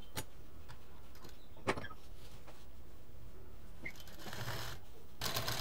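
Black domestic sewing machine: a couple of light clicks as the fabric is set under the needle, then about five seconds in the machine starts stitching at a fast, even rhythm, sewing down the folded-in piping edge.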